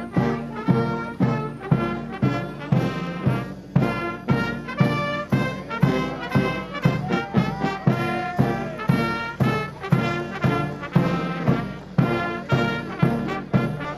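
Brass band playing music with a steady beat, accented about twice a second.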